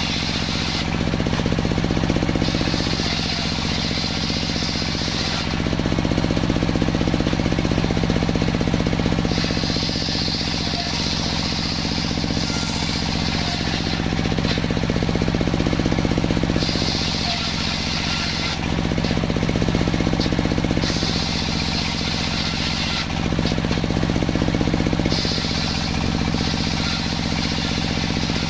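Large sawmill circular saw ripping a big salam log lengthwise, its drive running steadily with a low hum. A high whine from the blade comes and goes every few seconds as the log is pushed through the cut.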